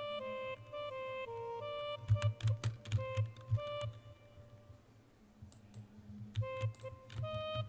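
Sampled Anatolian woodwind from the Breath of Anatolia Kontakt library playing a melody of held notes in a DAW, which stops about three seconds in and starts again near the end. Mouse clicks and keyboard taps sound throughout.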